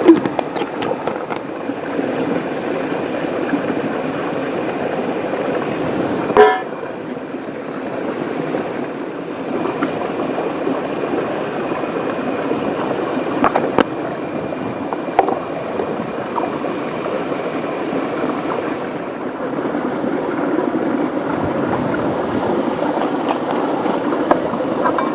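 Steady rush of river water and rain, with a thin high steady tone over it. A sharp knock comes about six seconds in, and a few fainter clicks follow.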